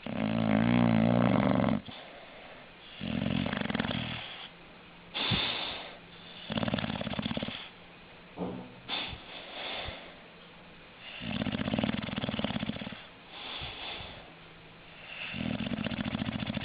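English bulldog snoring in a steady rhythm: loud buzzing snores about every three and a half to four seconds, each followed by a softer breath.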